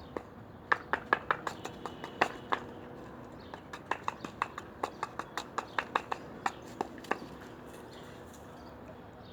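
Dog barking over and over in quick, short, sharp barks for several seconds, then stopping.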